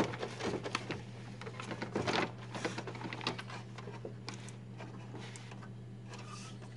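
Damp cloth rubbing over a Xerox Phaser 6180's transfer belt, with irregular plastic clicks and rattles as the belt unit is handled and turned, busiest in the first three seconds. A steady low hum runs underneath.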